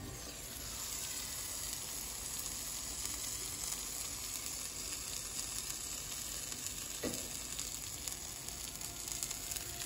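Egg and tomato omelette frying in an uncovered nonstick pan, sizzling steadily, with one light knock about seven seconds in.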